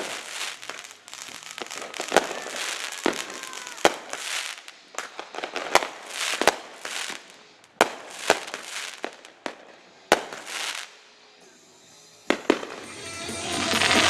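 Fireworks display: aerial shells bursting in a run of sharp bangs, about one a second, with crackling between them. There is a short lull about eleven seconds in, then more bangs.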